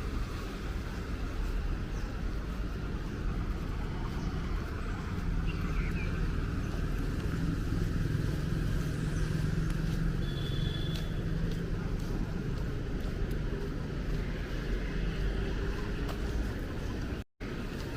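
Street traffic ambience: a steady low rumble of road vehicles, with one engine hum growing louder through the middle and then easing. A short high tone sounds about two-thirds of the way in, and the sound cuts out for an instant near the end.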